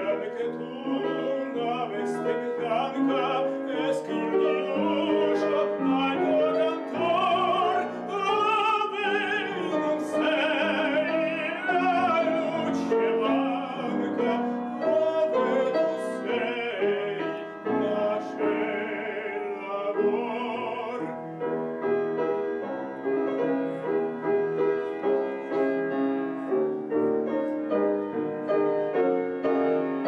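A classical male voice sings with strong vibrato, accompanied by a grand piano. About two-thirds of the way through, the voice stops and the piano plays on alone.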